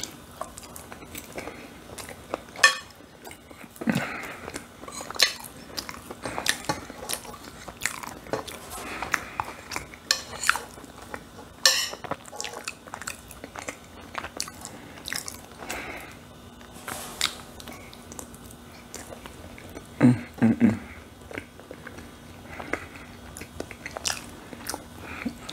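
A person chewing and biting mouthfuls of shepherd's pie, with wet mouth noises and scattered short clicks, and now and then a fork touching the plate.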